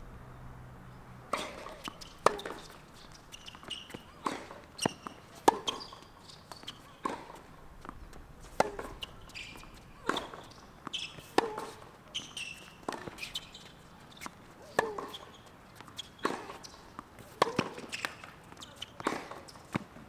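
Tennis rally on a hard court: racket strings striking the ball and the ball bouncing, a steady back-and-forth of sharp knocks about once a second starting a little over a second in.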